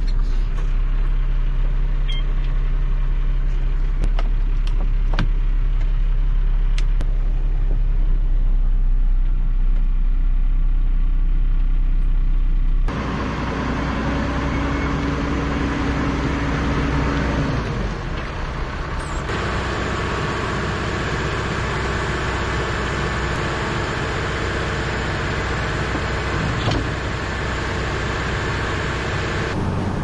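JCB Fastrac 1125 tractor engine running steadily, heard from inside the cab, with a few light clicks in the first seconds. About halfway through the sound changes abruptly to a lighter, hissier running noise.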